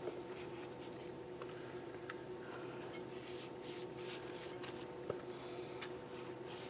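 Faint soft swishes and dabs of a pastry brush spreading melted garlic butter onto hot dog buns, with a few light ticks, over a steady hum.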